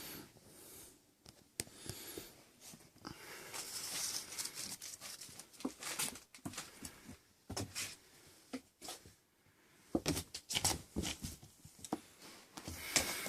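Six-week-old kittens playing: scuffling and scratching with pattering paws and scattered small knocks.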